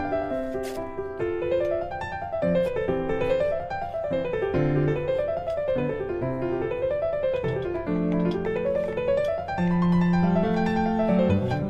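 Background piano music: runs of notes rising and falling again and again over held lower notes.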